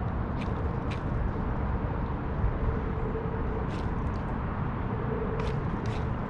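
Steady low outdoor rumble, with a few short, sharp clicks scattered through it.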